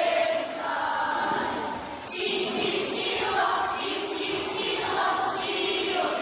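A group of children's voices chanting together in unison in a Filipino choral recitation (sabayang pagbigkas), in drawn-out, sung-like phrases with a brief pause about two seconds in.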